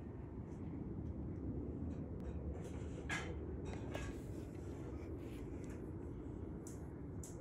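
Steady low rumble of a Boeing 787-10 airliner's jet engines passing high overhead, with a few brief faint scratches and clicks on top, the clearest about three seconds in.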